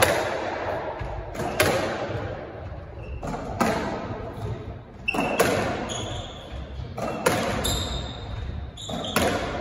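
A squash rally: sharp cracks of racket on ball and ball on the court walls, echoing in the enclosed court, about every one and a half to two seconds, starting with the serve. Short high squeaks of shoes on the wooden court floor come between the shots.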